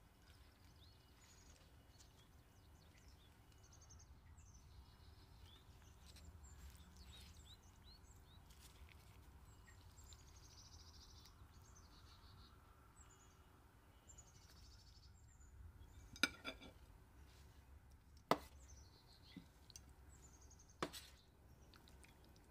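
Faint bird chirping over a low hum, with three sharp clicks or clinks in the second half, about two seconds apart.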